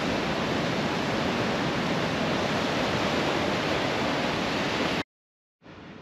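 Rough sea surf breaking on a rocky lava shore, a steady rushing that cuts off sharply about five seconds in.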